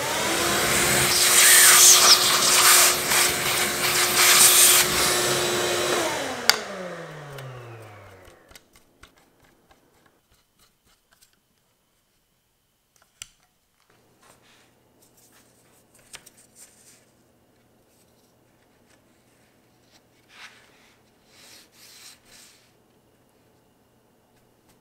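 Bosch handheld router running with a straight bit cutting MDF, then switched off about six seconds in, its motor whine falling steadily in pitch as it spins down. Faint clicks and handling noises follow.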